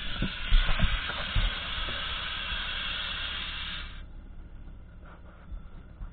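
Compressed air hissing steadily from scuba gear for about four seconds, then cutting off suddenly, with a few knocks near the start.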